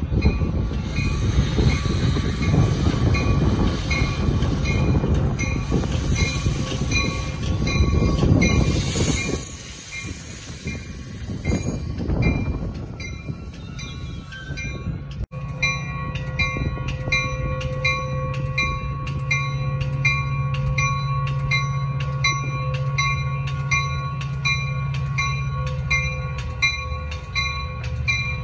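Metra commuter train, a diesel locomotive hauling bilevel gallery cars, rumbling past for the first nine seconds or so before the noise falls off. Through it a grade-crossing bell rings at about two strokes a second. The bell goes on in the second half over a steady low hum.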